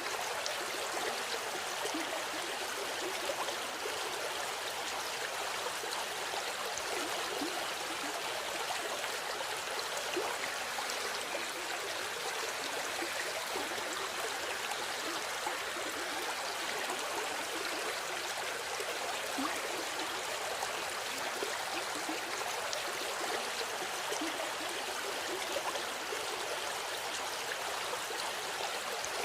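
River water flowing and burbling over stones, a steady even rush with small splashes and gurgles throughout.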